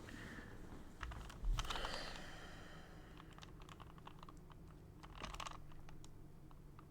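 Original Rubik's Cube being turned by hand: its plastic layers clicking and clacking in short runs, with a busier run about a second and a half in and another a little after five seconds.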